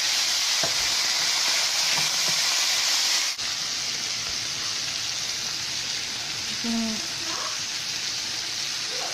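Chicken thigh fillets and chickpeas sizzling steadily in a frying pan. The sizzle dips briefly about a third of the way in and carries on a little quieter.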